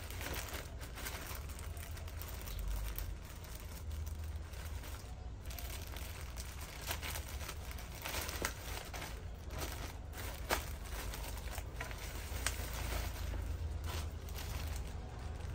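Plastic shipping pouch and bubble-wrapped package being handled and torn open: continuous crinkling with many short, sharp crackles, over a steady low rumble.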